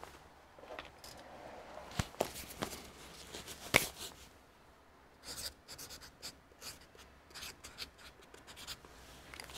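Faint scattered clicks and light rubbing from small handling. There is one sharper knock about four seconds in, then a quick run of light clicks in the second half.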